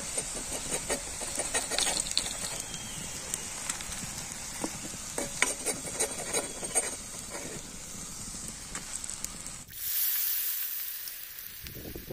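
Hot oil deep-frying potato lollipops in an iron kadai, sizzling and crackling with small clicks and scrapes of a steel spoon. About ten seconds in it changes abruptly to a louder, hissing sizzle that slowly fades, as freshly batter-dipped lollipops fry.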